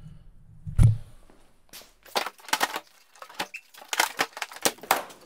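Lid of a large plywood shipping crate with metal-edged corners being worked loose and lifted by hand. One thump about a second in, then a fast run of sharp wooden cracks and knocks.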